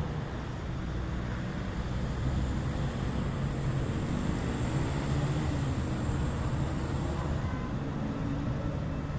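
A motor vehicle's engine running, a steady low hum whose pitch rises and falls slightly around the middle.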